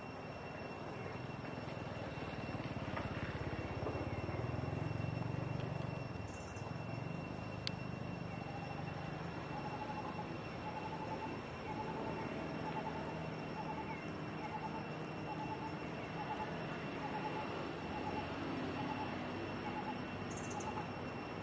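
Outdoor ambience: a low engine rumble that swells about four to six seconds in, under a steady high whine. From about eight seconds in, a short note repeats about twice a second.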